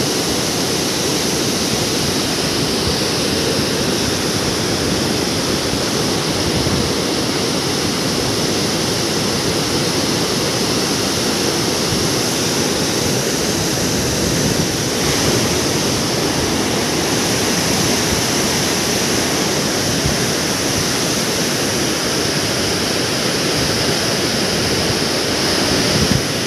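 Muddy floodwater pouring through a dam's open radial spillway gates and down the concrete spillway chute: a steady, loud rush of water. The dam is releasing floodwater after heavy typhoon rains.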